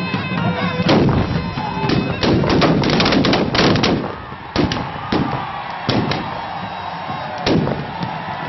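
Volley of shots from long-barrelled black-powder guns fired by a line of men: a loud bang about a second in, a rapid string of sharp bangs up to about four seconds in, then scattered single shots. Music plays underneath.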